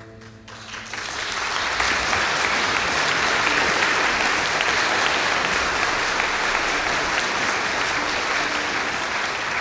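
The orchestra's last held chord dies away at the very start. Then an audience breaks into applause that swells over the first two seconds and stays steady and loud.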